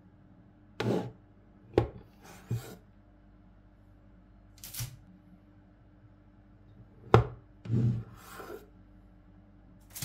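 A large kitchen knife slicing through a log of cookie dough and knocking on a wooden cutting board, in a handful of separate cuts and taps, two sharp knocks the loudest. Cut slices are set down on a baking tray in between.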